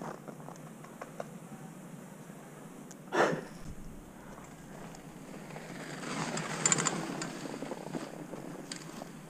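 Mountain bike ridden down a snowy trail: tyres crunching over snow, with a steady patter of small clicks and rattles from the bike. A short, louder burst comes about three seconds in, and the snow noise swells around six to seven seconds.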